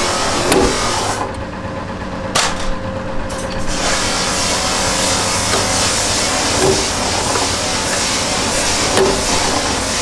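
Mechanical punch press running with a steady hum, its punch striking through a steel plough-blade sheet in four sharp clanks spread a couple of seconds apart.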